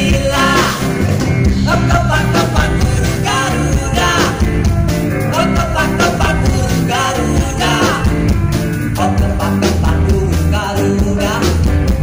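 A live pop-rock band playing electric guitars and drums with a steady beat, and a man singing over them.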